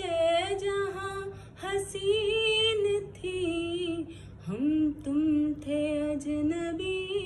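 A woman singing a ghazal unaccompanied, in several long held phrases with small ornamental turns and short breath breaks between them.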